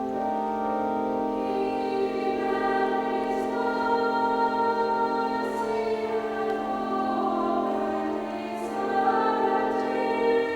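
Church choir singing with organ in slow, long-held chords.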